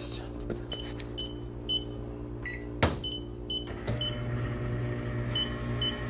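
Handheld Meterk MK54 EMF meter beeping in short high pips. About two and a half seconds in, a single lower beep and a click come, and about a second later the microwave oven starts up with a steady electrical hum. The meter's pips then come faster as the field it reads climbs toward its alarm limit.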